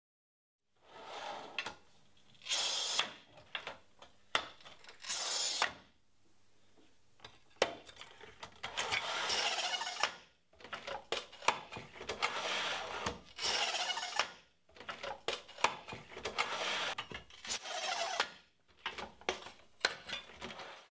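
Wolfcraft TC670 manual tile cutter in use: the scoring wheel scratches across a ceramic tile as the carriage is pushed along its rails. It comes in repeated strokes of one to three seconds, with sharp clicks and knocks of the handle and fittings between them.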